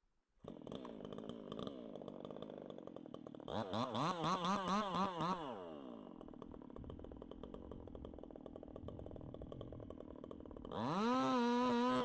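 Chainsaw engine coming in abruptly about half a second in, running at idle, then revved in quick wavering pulses around four seconds in before dropping back to idle. Near the end it is revved up hard and held at high speed.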